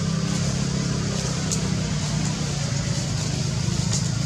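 A motor running with a steady low hum, under an even hiss.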